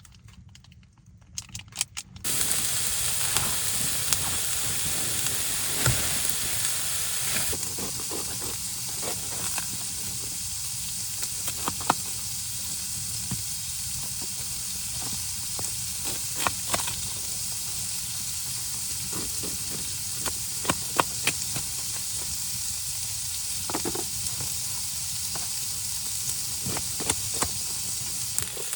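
Food frying in a hot pan: a steady sizzle that starts suddenly about two seconds in, with scattered crackles and pops.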